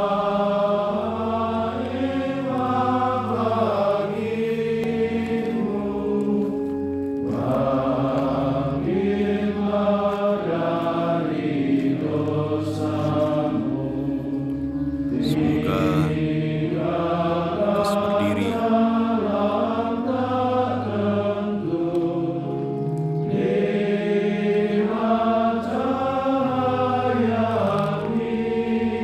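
Background music: slow chant-like singing over sustained low accompaniment notes that change every few seconds.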